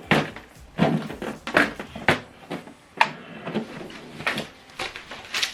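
Irregular short knocks and rustles as sheets of paper and the plastic paper guide of an HP DeskJet 4120 inkjet printer's rear input tray are handled.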